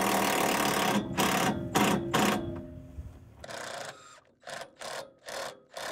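DeWalt 18V cordless drill driving a bolt down through an aluminium T-top foot into a boat deck. The motor runs steadily for about a second, then in a string of short trigger bursts as the bolts are tightened down.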